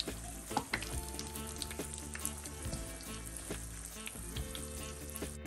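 Flour-coated chicken wings deep-frying in a pan of hot oil: steady sizzling with scattered small pops.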